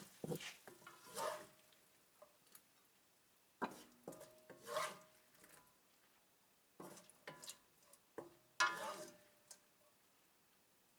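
A spatula scraping and rubbing against a cooking pan in four or five short, separate bursts, some with a faint ring, as stir-fried chicken and sugar snap peas are scooped out of the pan.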